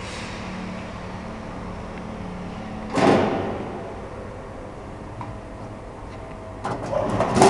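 UV600P UV lamp machine running with a steady hum, broken by a loud knock about three seconds in and a quick cluster of knocks and rattles near the end.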